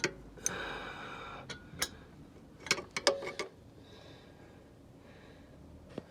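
Sharp metallic clicks and clinks of hand tools working the scooter's exhaust mounting bolts, about eight in the first three and a half seconds, one of them ringing briefly.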